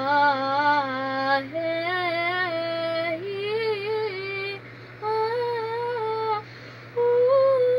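A young girl singing an unaccompanied vocal warm-up on the vowels. It runs in about five short sustained phrases, each a step higher in pitch than the one before.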